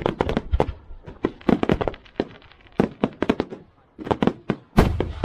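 Fireworks going off: sharp bangs and cracks in irregular clusters. The loudest blast comes near the end, followed by a low rumble.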